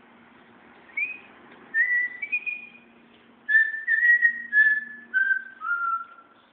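A person whistling a short tune: a few brief notes, then a run of notes stepping down in pitch over the last few seconds.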